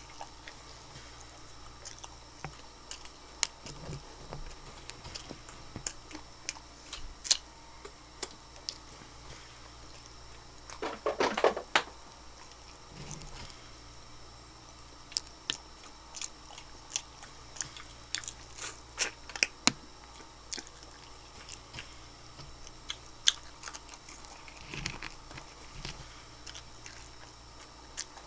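Close-up eating sounds of crispy air-fried chicken wings: biting, crunching and wet chewing with scattered sharp clicks and smacks, a burst of heavier crunching about eleven seconds in.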